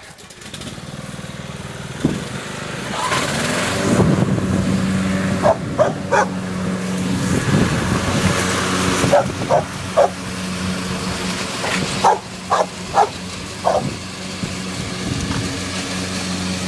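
Lawn mower engine running steadily, growing louder over the first few seconds. A dog barks over it, in short single barks and pairs every second or two.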